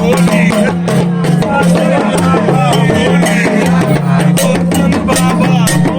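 Music with drums and a steady bass line, with singing or voices over it.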